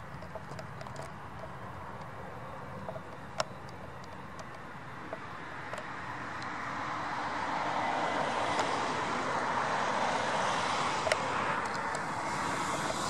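Jet engines of an Airbus A320-family airliner on final approach, a rushing jet noise that grows louder from about six seconds in and stays loud as the plane nears the runway. A few faint clicks come in the first few seconds.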